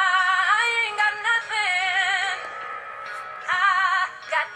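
A woman singing loudly along to a recorded song, with wide vibrato on held notes, in two phrases with a pause of about a second between them.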